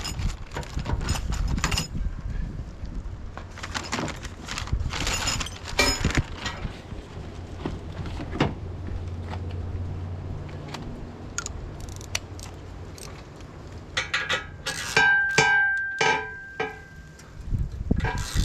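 Metal hitch parts clinking and knocking as they are handled and fitted, with a cluster of ringing metal strikes near the end.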